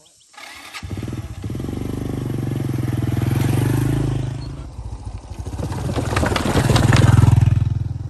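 Small step-through motorbike engine running close by, swelling as the bike approaches, easing off, then loudest as it passes and rides away. Around the loudest part comes a run of clattering knocks from loose wooden planks as the wheels cross them.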